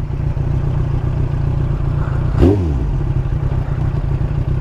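Yamaha R1 motorcycle's inline-four engine idling steadily while stopped, with a brief louder sound about halfway through.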